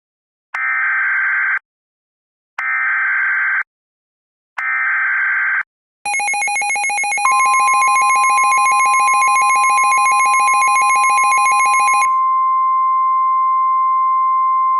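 Emergency Alert System tones: three short screeching bursts of SAME header data, about a second each and a second apart. A harsh buzzing attention alarm follows from about six seconds in, joined by a steady high warning tone. The buzz cuts off about twelve seconds in, leaving the steady tone sounding.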